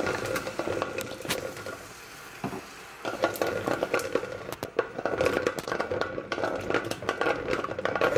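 Metal spoon stirring milk into hot caramelised sugar in a metal pot, scraping the bottom and clinking against the sides. It eases off briefly about two seconds in, then picks up again with quick, repeated clinks.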